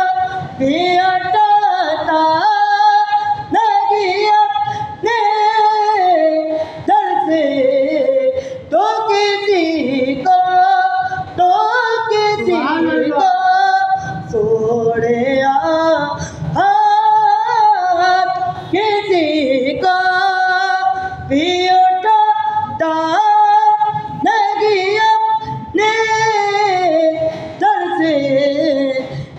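A voice singing a naat, an Urdu devotional song, in long held and gliding notes, phrase after phrase with short breaks for breath.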